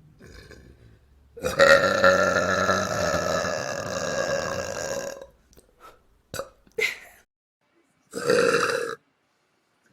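A person burping: one long, loud burp of nearly four seconds, then two brief sounds, then a second, shorter burp near the end.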